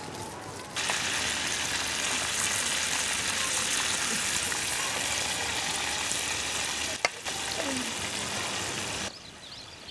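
Masala-coated fish pieces shallow-frying in hot oil with a steady sizzle. The sizzle starts abruptly about a second in and drops away shortly before the end, with one sharp click about seven seconds in.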